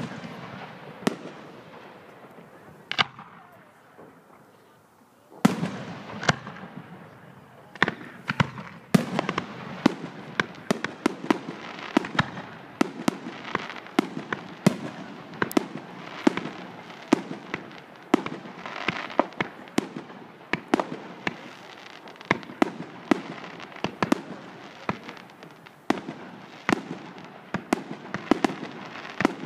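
Aerial fireworks shells bursting with sharp bangs. A few come spaced out at first, then after a short lull, from about five seconds in, a rapid barrage of many bangs, several a second.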